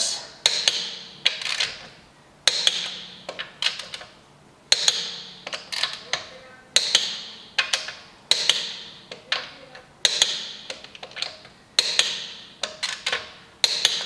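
Click-type torque wrench clicking over and over as the lug bolts reach their set torque of 90 ft-lb, about once a second, each sharp click trailing off briefly.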